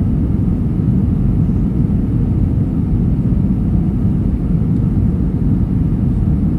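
Steady low roar of an airliner's cabin in descent, the engines and airflow heard from a window seat over the wing.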